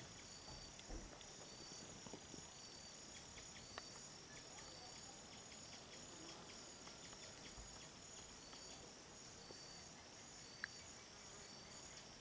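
Faint chorus of insects: a steady high buzzing with a short chirp repeating about once a second, and a couple of sharp clicks.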